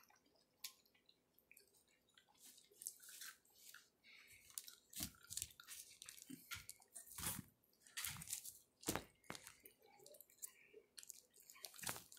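Faint, wet chewing and squishing of orange segments close to the microphone, in irregular smacks and clicks.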